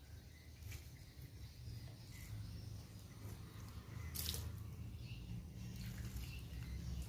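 Water poured from a plastic dipper splashing faintly onto aglaonema leaves and potting soil, rinsing dish soap off the leaves, with a brief sharper splash about four seconds in. A low steady rumble runs underneath.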